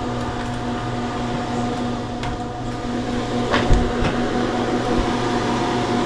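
Steady electric hum of a small shop's cooling equipment, a low drone with a higher steady tone over it. A short sharp knock sounds a little past three and a half seconds in.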